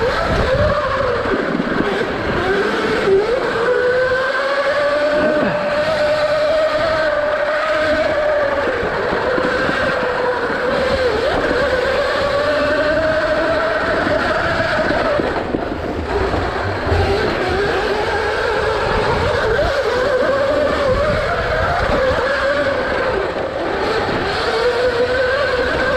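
Electric dirt bike's motor whining, its pitch rising and falling as the rider speeds up and slows through the turns, over a low rumble of tyres on dirt.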